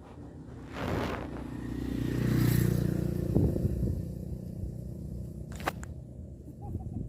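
A motor engine passing by, growing louder to a peak about two and a half seconds in, then fading, over rustling and scraping, with a sharp click near the end.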